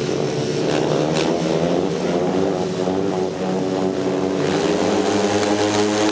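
Several 500 cc single-cylinder speedway motorcycle engines revving together at the starting tapes, their pitches wavering up and down; the revs build near the end.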